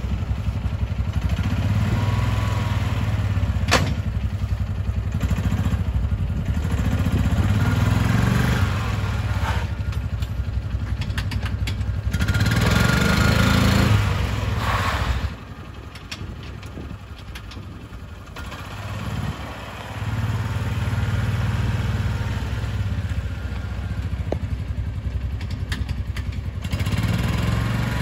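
Kawasaki Mule SX side-by-side's single-cylinder engine running as it drives, the revs rising and falling. A little past halfway it drops suddenly to a low, quieter run for about four seconds, then picks up again. There is a single sharp click early on.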